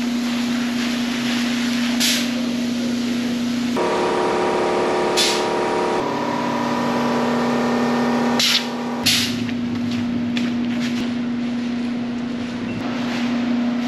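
Gel coat spray rig at work: the pump unit runs with a steady hum under a constant spray hiss, and a few brief, sharper bursts of hiss come from the spray gun as it is triggered.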